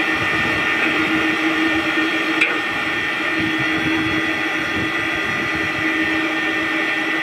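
Motor-driven three-roll plate bending machine running steadily as it rolls a metal sheet into a curved shell: a steady machine hum with a whine, and a single click about two and a half seconds in.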